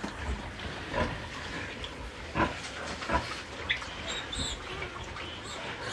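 Domestic pigs, a sow and her newborn piglets, grunting: a series of short grunts about a second apart.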